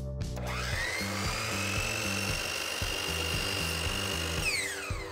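A Hercules sliding compound miter saw spins up with a rising whine about half a second in, then runs at a steady pitch while its blade cuts through a piece of crown molding. Near the end it is switched off and the whine falls quickly as the blade winds down. Background music with a steady beat plays underneath.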